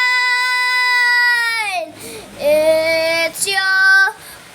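A child singing unaccompanied: one long held high note that slides down about two seconds in, then two shorter notes.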